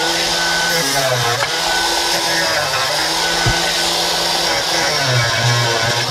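Angle grinder running continuously as it grinds metal clamped in a vise. Its motor whine shifts in pitch a few times as the disc is pressed into the work, over a steady grinding hiss.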